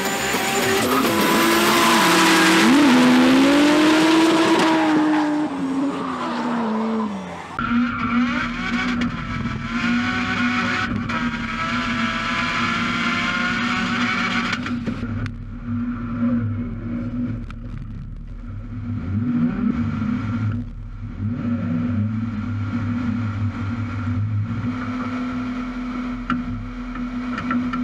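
Drift car's engine revving hard, its pitch rising and falling, while its rear tyres squeal and slide, then dropping away about seven seconds in. After that, a second drift car's engine is heard up close from its hood, running at a steady note with a rough low rumble.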